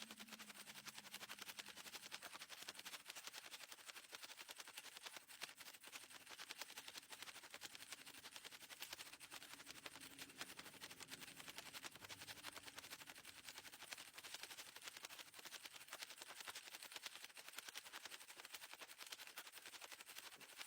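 Faint, rapid, continuous clicking of a 4x4 Rubik's cube's layers being turned.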